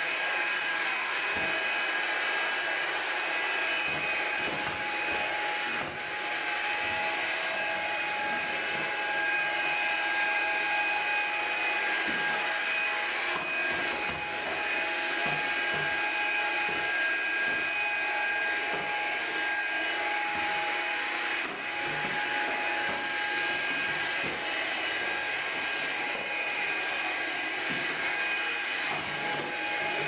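Hoover Linx BH50010 cordless stick vacuum running steadily on wooden stair treads: a high, even motor whine over a rushing hiss, dipping briefly twice.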